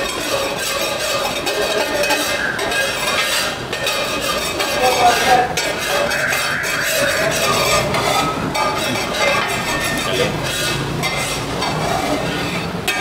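Hot oil sizzling in a large frying pan of fried siopao (toasted steamed buns), while a long-handled metal spatula scrapes and stirs against the pan, with scattered clinks.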